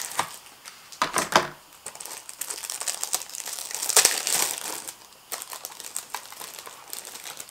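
Plastic eyelash packaging crinkling and rustling as it is handled, in irregular bursts, loudest around the middle.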